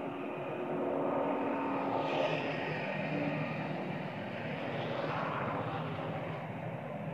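A steady engine drone with a low hum, growing a little louder over the first second and then holding.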